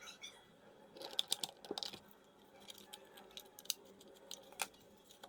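Small plastic clicks and taps from handling and fitting a car's power window master switch, with a cluster of quick clicks about a second in and a couple of single clicks later.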